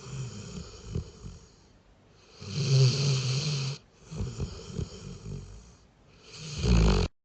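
Doberman snoring in its sleep: two loud rattling snores about four seconds apart, with softer breaths between.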